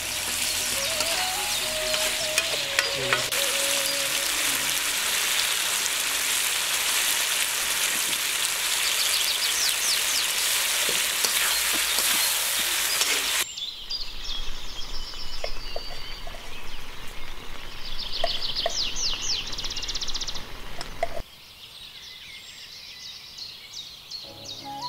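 Chicken curry sizzling loudly in a wok over a wood fire, with a spatula stirring and scraping through it. About thirteen seconds in the sizzling cuts off abruptly, leaving quieter outdoor sound with birds chirping.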